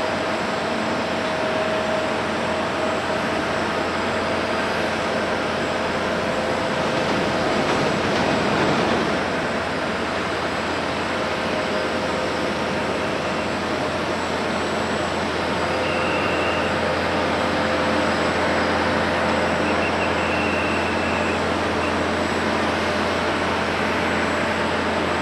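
Boeing 777-300ER's GE90 jet engines running at taxi idle, heard across the apron as a steady rush with a faint whine. The noise swells a little about eight seconds in.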